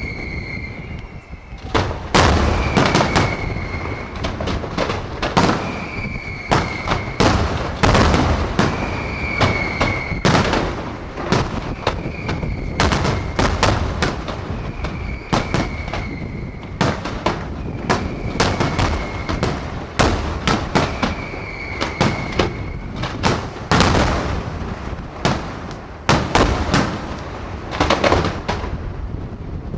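Fireworks display: a dense, unbroken barrage of sharp bangs and deeper booms. A short, slightly falling high whistling tone recurs about every two seconds until near the end.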